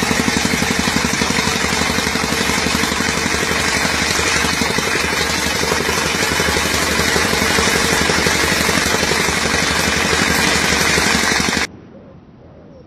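A motorised machine running loudly with a fast, even rattling rhythm, cutting off suddenly near the end.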